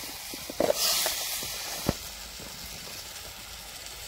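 Snail curry sizzling softly in a steel kadai, a steady hiss, with a few sharp knocks of a steel ladle against the pan in the first two seconds.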